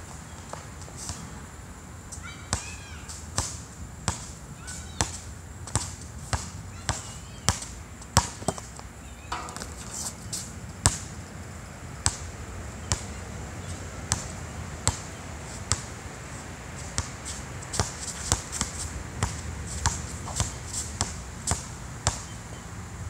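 Basketball being dribbled on an outdoor asphalt court: a long run of sharp, evenly spaced bounces, a little more than one a second, coming closer together near the end.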